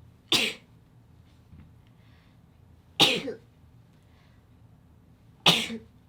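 Three short, sharp sneezes, about two and a half seconds apart.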